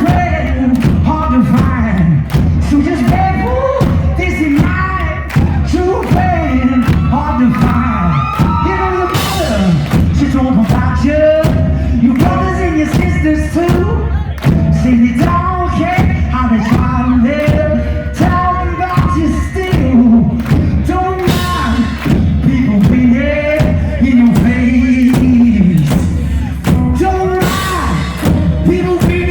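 Live rock music from a two-piece band: electric guitar and drum kit playing loud and continuous, with sung vocals.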